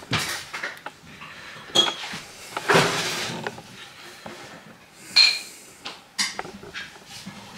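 Spoons and dishes clinking and knocking on a table, several separate clinks. The loudest comes about five seconds in and rings briefly.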